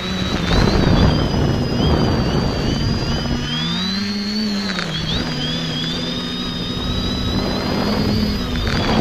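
Onboard recording of an X550 quadcopter's brushless motors and propellers running, a steady multi-pitched whine whose pitch wanders up and down with the throttle, swelling and dipping about halfway through, with wind buffeting the camera's microphone.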